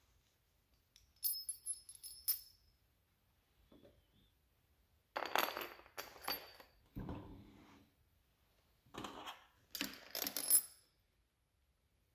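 Metal-on-metal clinks from hardware and hand tools being handled and set down on a steel tool-cart tray. They come in four short clusters, the sharpest with a brief high ringing, and a duller knock falls a little after the middle.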